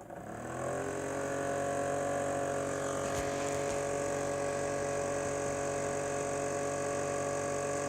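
Homemade 12-volt three-blade box fan starting up: its motor rises to speed within about a second, then runs steadily with a humming whir and a rush of air.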